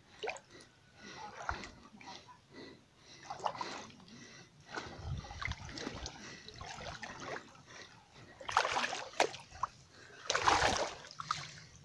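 Legs wading through creek water, splashing and sloshing in irregular strokes, with two louder splashes near the end.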